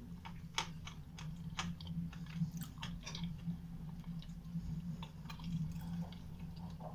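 Close-up chewing of a mouthful of chocolate biscuit cake: wet mouth clicks and smacks with an occasional crunch from the hard sugar decorations.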